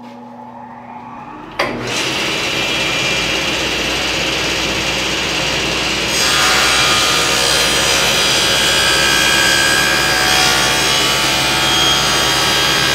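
SawStop cabinet table saw running with its blade tilted to 45 degrees, ripping a bevel along a plywood leg blank. A sharp knock comes about a second and a half in and the sound gets louder. It grows louder and hissier again about six seconds in as the blade cuts through the wood.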